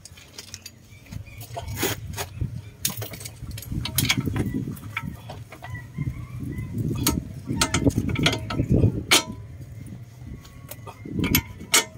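Metal tools and suspension parts clinking and knocking as a car's front hub and steering knuckle are worked on by hand during a CV joint replacement. Sharp clicks are spread through, over duller knocks and handling noise.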